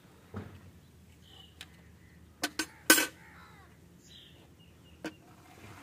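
A few sharp metal clanks, about six in all, as steel milk pails and a small metal pot are handled and set down. The loudest comes about three seconds in, with a short ring after it.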